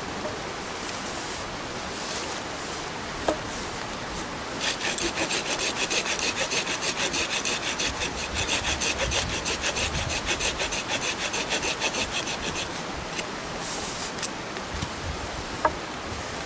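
A blade scraping or rasping on wood in a rapid, even rhythm, about five strokes a second, for some eight seconds from about five seconds in. A couple of single sharp knocks fall before and after.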